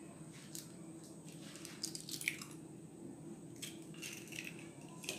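Raw egg being broken open by hand over a ceramic bowl: a few faint cracks of shell pulling apart and the soft wet drop of the egg into the bowl.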